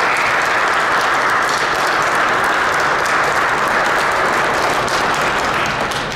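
A group of people applauding: steady hand clapping that eases off near the end.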